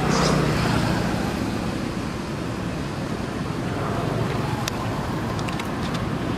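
Steady rumbling outdoor background noise, with a few faint short clicks about five seconds in.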